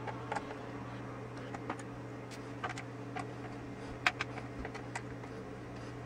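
Small screwdriver turning out the screws of a laptop's bottom cover: scattered light clicks and ticks, over a faint steady hum.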